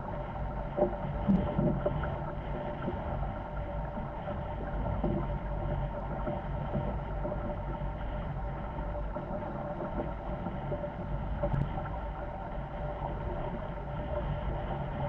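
Wind and water noise aboard a Corsair F-24 MKII trimaran sailing fast in strong wind: a steady rush with a low rumble of wind on the microphone and a faint steady hum under it. A few knocks come between one and two seconds in.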